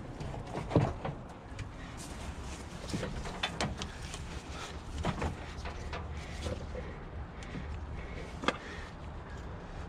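Hand-work on hoses and fittings around a UTV carburetor: scattered clicks, knocks and rustling of plastic fittings and rubber lines being handled and pushed into place, with a louder knock just under a second in and a sharp click near the end.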